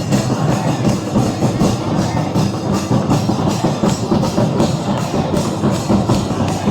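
Music with a steady, driving drum beat.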